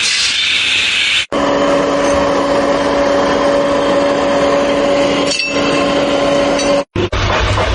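An electric power tool's motor running with a steady hum over workshop noise, in short clips that cut off abruptly several times.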